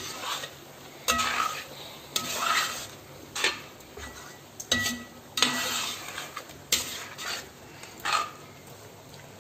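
Metal ladle stirring chicken curry in a brass pan, scraping and knocking against the pan about once a second, several strokes leaving a brief ringing note, with the gravy simmering beneath as it reduces and thickens.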